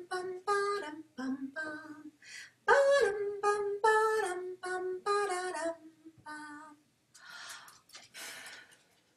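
A woman singing a short wordless tune on neutral syllables, the notes stepping down in pitch over two phrases. Near the end come two breathy, whispered puffs.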